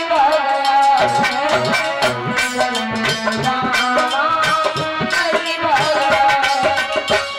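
Indian devotional song: a woman's voice singing a melody over sustained accompanying notes and steady percussion strokes.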